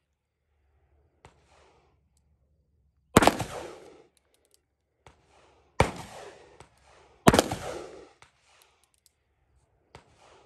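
Three shots from a 3-inch Colt King Cobra .357 Magnum revolver firing 158-grain .357 Magnum rounds. The second and third come about a second and a half apart, and each report trails off in echo.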